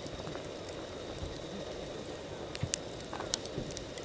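Wood campfire burning over a steady low rustle, with scattered sharp crackling pops; the two loudest come about two-thirds of the way in.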